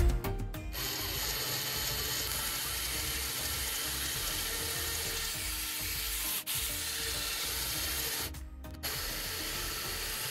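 Two small yellow DC gear motors of a homemade linear actuator running and turning its threaded rods, sped up four times: a steady rough whirring hiss, with a brief break about eight and a half seconds in.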